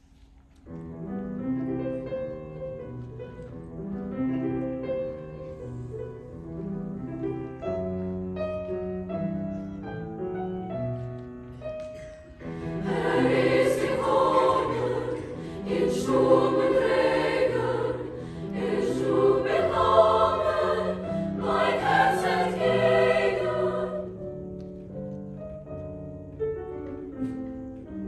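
Soprano-alto choir singing, soft at first, swelling much louder and fuller about halfway through, then softening again near the end.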